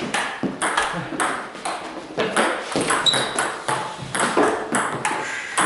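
Table tennis balls clicking off bats and tables in quick, irregular succession, several rallies overlapping from more than one table.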